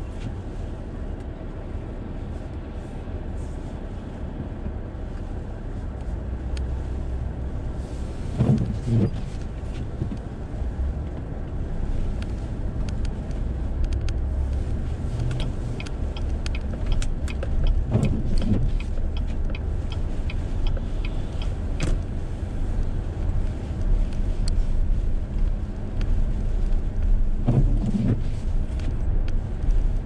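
Steady low road and engine rumble inside a car driving slowly on snowy streets. Intermittent windshield wipers sweep about every nine or ten seconds, three times, and light ticks are scattered through the middle.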